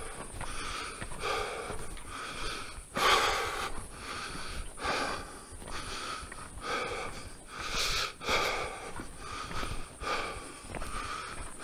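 A hiker breathing hard into the microphone while climbing a steep trail, a quick, regular run of breaths with a deeper, louder one about three seconds in and another near eight seconds.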